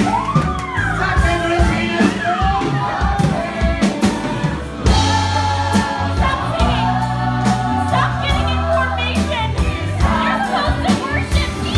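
Several voices singing together over a loud band accompaniment with bass and drums, with a lead voice sliding through melodic runs.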